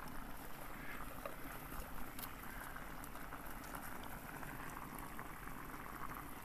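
Broth bubbling steadily in a saj pan of meat and vegetables as it simmers, with faint ticks and pops.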